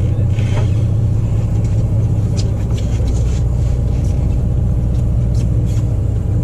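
A sportfishing boat's engine runs with a steady low drone, and a few light clicks and taps sound over it.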